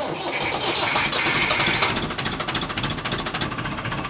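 Massey Ferguson 165 tractor engine starting up, then running steadily, with a higher whine over it for the first couple of seconds.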